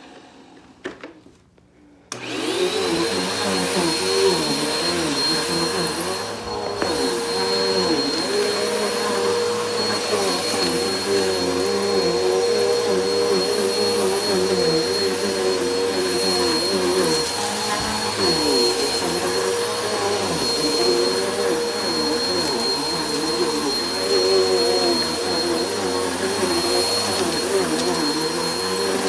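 Helix Turbo bagless upright vacuum switched on about two seconds in, then running steadily as it is pushed back and forth over carpet. There is a high, steady whine over the motor's drone, and the lower tones waver with each stroke.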